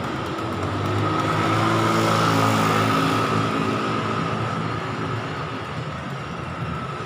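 Road traffic passing close by: a car's engine hum and tyre noise swell up and fade away about two to three seconds in. A steady high tone runs underneath.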